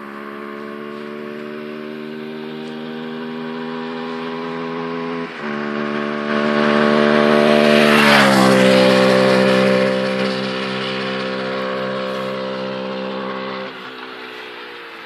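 Husqvarna SMR 125 supermotard's single-cylinder engine pulling under load. The pitch drops at a gear change about five seconds in. The bike is loudest about eight seconds in, where the pitch falls as it passes. It backs off near the end.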